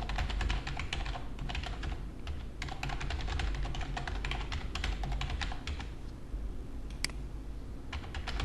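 Typing on a computer keyboard: runs of rapid key clicks with short pauses between them, and one sharper single click about seven seconds in, over a steady low hum.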